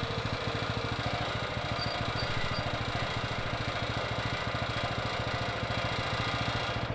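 Gasoline engine of a portable band sawmill running steadily with an even pulse.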